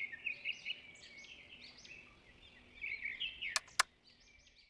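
Birds chirping in quick, short, high notes, with two sharp clicks about three and a half seconds in.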